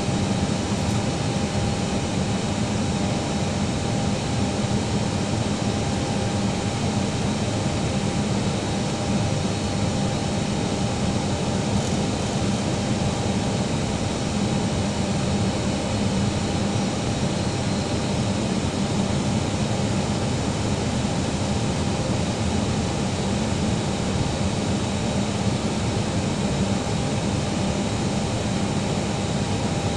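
Steady jet engine and airflow noise inside the cabin of an Airbus airliner on approach, with a low hum and a faint higher whine held level.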